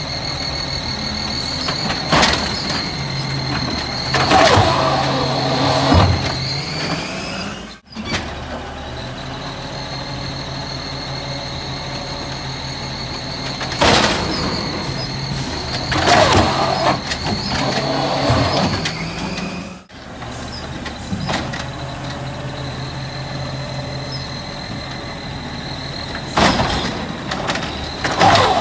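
Natural-gas automated side-loader garbage truck working its hydraulic arm: the engine runs raised with a steady high hydraulic whine while the arm grabs, lifts and dumps wheeled trash carts. Loud clanks and bangs come as carts are shaken at the top and set back down, in three lift-and-dump cycles.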